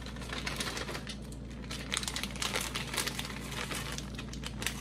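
Plastic bag of frozen peas and carrots crinkling in irregular crackles as it is squeezed and shaken to pour the vegetables out.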